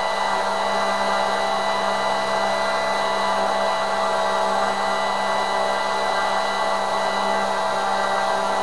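Turnigy G-25 870KV brushless outrunner motor spinning a Master Airscrew 10x7 propeller at steady part throttle on a static power test, drawing about 3.2 amps. It makes an even whir with a steady motor whine that does not change in pitch or level.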